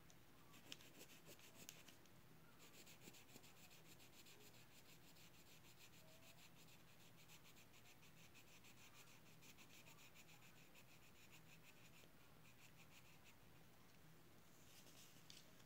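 Faint scratching of a pen, marker or crayon coloring in on paper, with many quick back-and-forth strokes. It starts about two and a half seconds in and eases off about twelve seconds in, with a few more strokes near the end.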